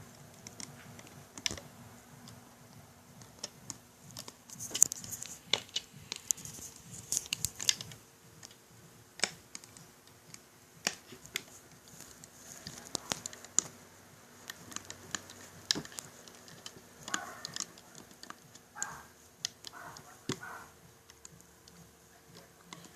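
Irregular light clicks and taps as a hook works rubber bands over the pegs of a bracelet loom.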